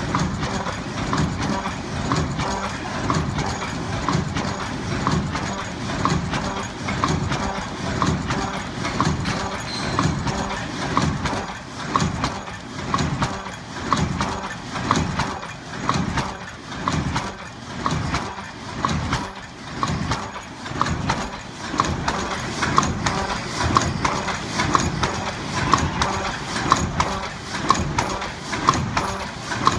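ZBJ-NZZ middle-speed paper cup forming machine running, a rhythmic mechanical clatter that pulses about once a second as each cup is formed, in line with its 60–70 cups a minute.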